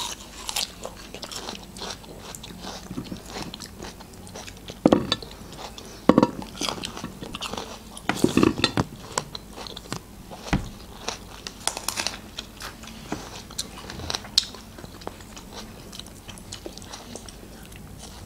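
Two people biting into and chewing hard, sour unripe green cherry plums (alcha), with irregular crisp crunches and a few louder bites.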